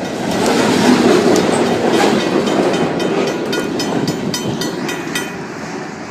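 Union Pacific local freight train's cars rolling past, wheels clicking over rail joints. The sound fades as the end of the train goes by, and the clicking stops about five seconds in.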